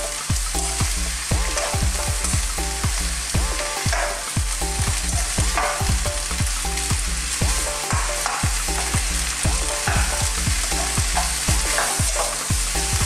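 Stir-fry vegetables sizzling in a hot wok as a spatula stirs and tosses them, scraping across the pan in repeated strokes over a steady hiss.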